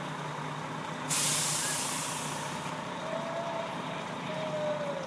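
Fire engine's engine running as it creeps along, with a sudden sharp air-brake hiss about a second in that fades away over a second or so.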